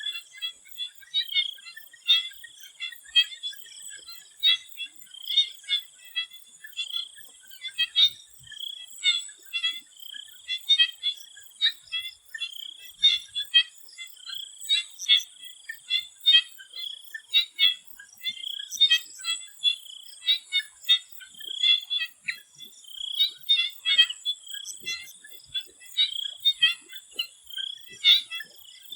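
Chorus of swamp frogs, many short calls repeating and overlapping, over a steady high-pitched hum.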